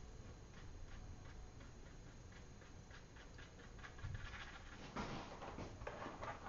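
Watercolour brush tapping and stroking on paper: faint light ticks a few times a second, then louder scratchy brush strokes in the last two seconds or so.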